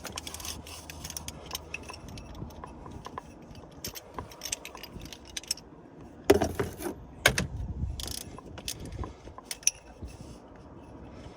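Metal hand tools clicking and clinking as a socket wrench works the E12 Torx bolts of a crankshaft pulley, with a louder clatter of knocks about six to eight seconds in.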